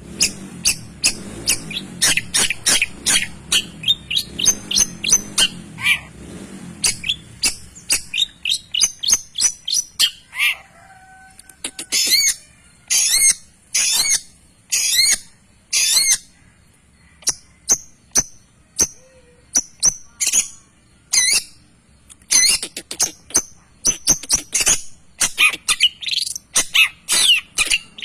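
Long-tailed shrike (cendet) singing a fast, loud run of short, sharp 'tembak' notes, several a second, some sweeping up or down in pitch. The run thins out with short pauses around the middle, then picks up again.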